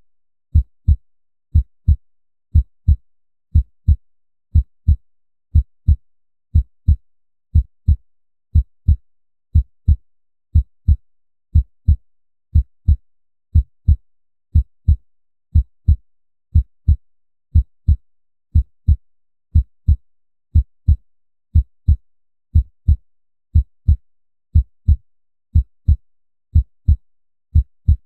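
Heartbeat sound effect: steady deep double thumps, lub-dub, repeating about once a second.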